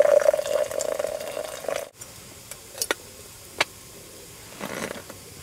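Liquid being poured into a cup, a steady splashing pour that cuts off abruptly about two seconds in. After it come two light clicks and a soft rustle.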